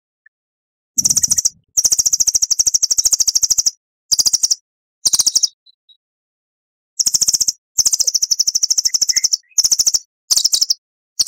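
Recorded songbird song: rapid, high-pitched trills in about nine bursts, from under half a second to nearly two seconds long, separated by short silent gaps.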